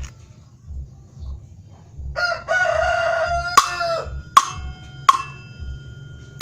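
A rooster crows once for about two seconds. Toward its end, sharp metallic knocks begin, each ringing briefly, at about one every three-quarters of a second.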